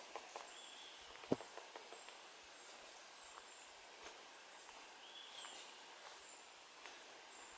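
Faint forest ambience with birds calling: a thin high note repeating about every three-quarters of a second, and a short call about half a second in and again about five seconds in. A single sharp click about a second and a half in.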